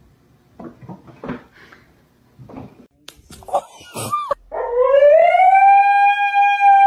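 A dog howling: one long call that starts about four and a half seconds in, rises in pitch, then holds steady for about three seconds before stopping abruptly. Before it there are only a few faint, short sounds.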